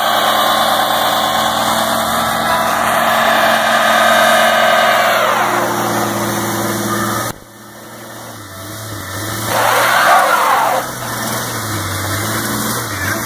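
Ford Ranger pickup's engine held at high revs in a burnout, the rear tyre spinning on the pavement. About five seconds in the revs fall away and the engine settles to a lower run, with one short rev about ten seconds in.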